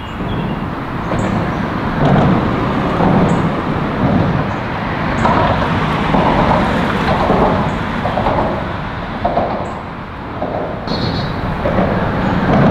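Road traffic crossing the bridge deck overhead: a continuous rumble of tyres that swells and eases as vehicles pass.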